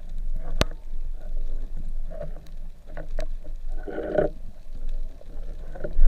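Water sound on a freediving spearfisher's camera: a steady low rumble with scattered sharp clicks, and a brief louder rush of noise about four seconds in.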